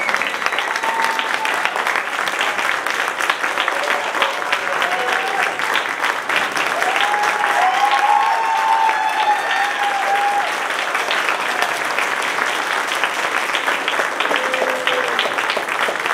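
Audience applauding steadily, with a few voices calling out and cheering over the clapping around the middle.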